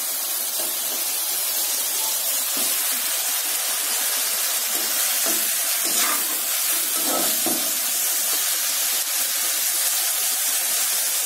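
Steady sizzling hiss of tamarind water cooking in hot oil with fried orange peel in a kadai, stirred with a ladle.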